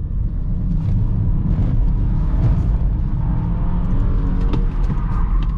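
Inside a BMW 320i with its turbocharged four-cylinder engine pulling hard in second gear under full throttle, a deep steady rumble with road noise from the wet tarmac.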